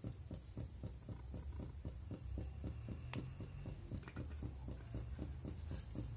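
Mustard oil heating in a hot kadai (wok): a faint low hum with rapid soft ticking, and a couple of sharper pops about three and four seconds in.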